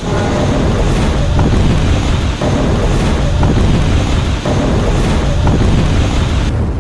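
A river in flood rushing loudly and steadily, with wind buffeting the microphone.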